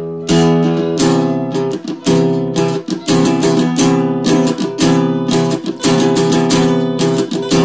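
Two acoustic guitars strummed together, playing chords in a steady rhythm with no singing.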